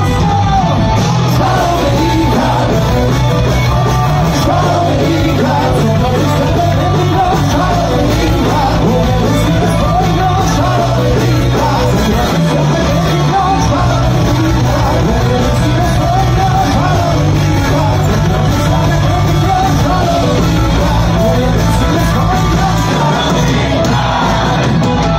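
Heavy metal band playing live: distorted electric guitars, bass and drums, with a singer's long held, wavering notes over them.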